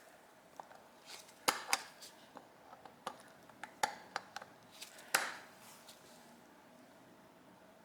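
Small metal carburetor parts and hand tools clicking and clinking on a workbench during carburetor disassembly: a dozen or so sharp taps between about one and five and a half seconds in, the loudest near the start of them and at the last one.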